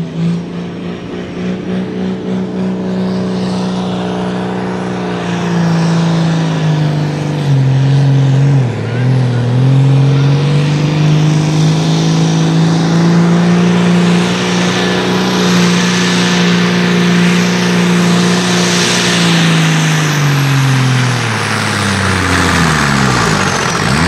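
Ford Farm Stock pulling tractor's diesel engine running flat out under the load of the pulling sled: a steady deep drone that sags and recovers briefly about eight seconds in, then falls steadily in pitch over the last few seconds as the revs drop away.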